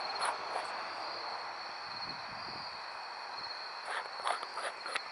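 Crickets chirping, a steady high-pitched trill. A few faint clicks or rustles come near the start and again about four seconds in.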